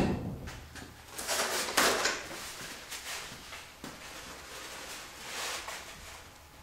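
Handling noises as a Yamaha YZ250 two-stroke cylinder is rocked and worked loose by hand on its studs: a sharp knock at the start, then bouts of scraping and rustling.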